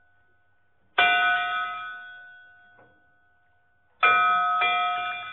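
A bell struck once, ringing out and fading, then struck twice more in quick succession about three seconds later.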